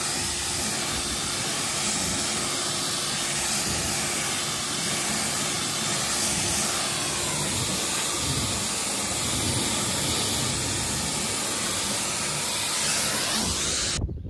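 Pressure-washer jet spraying water against a John Deere combine's painted metal side panels: a steady hiss of spray that cuts off suddenly near the end.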